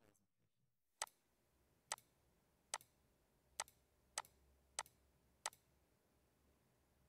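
Seven short, sharp computer mouse clicks, starting about a second in and coming a little under a second apart, each placing a corner point of a polygon in drawing software. There is near silence between the clicks.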